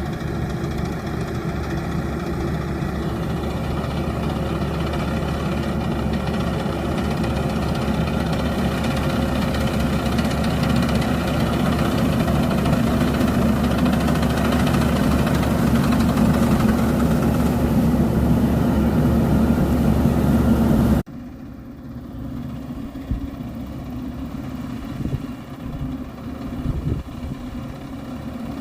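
Rice harvesting machine's diesel engine running steadily under load, rising slowly in level. About three quarters of the way through it drops off abruptly to a quieter, less even engine sound.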